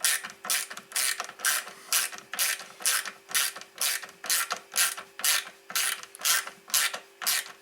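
Small screws being tightened with a ratcheting screwdriver: a short burst of ratchet clicks on each back-stroke, evenly repeated about twice a second.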